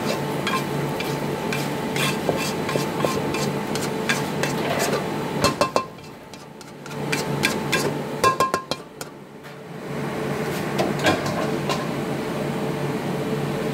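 Black wok tapped and scraped as dry-roasted chillies and shallots are tipped into an earthenware mortar, giving a run of clicks and knocks with two short quieter gaps about six and nine seconds in. A steady hum runs underneath.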